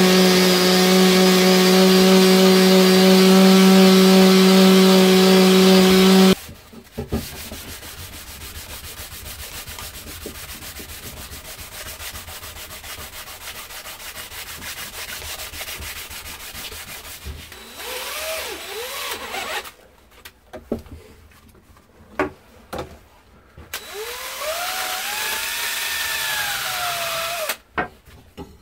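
Wet-and-dry abrasive paper rubbed by hand along a steel bill hook blade, an even scratchy rubbing. It is preceded by a loud steady hum that cuts off suddenly about six seconds in. Near the end come clicks and a few whines that rise and fall in pitch.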